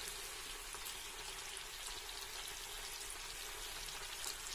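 Butter bubbling and sizzling steadily in a kadhai as it clarifies into ghee, a fine even hiss with faint crackles. The ghee is at the nearly-done stage.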